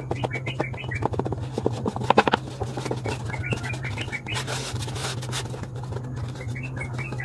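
Paper rustling and crinkling as hands press down and then lift and turn a glued paper disc, with irregular small clicks and scrapes of fingers on paper, loudest about two seconds in.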